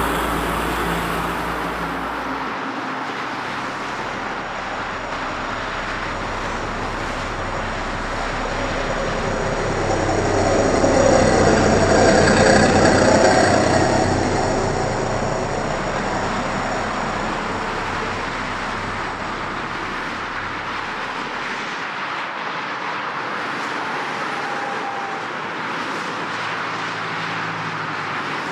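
Heavy road traffic: a continuous rush of passing vehicles, with one louder pass swelling up to a peak about halfway through and fading away again.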